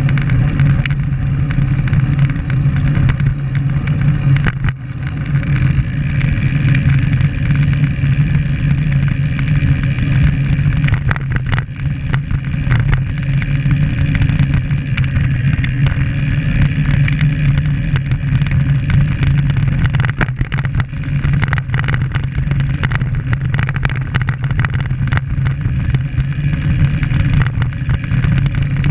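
Steady wind rumble and road noise on a bike-mounted action camera while riding a road bike.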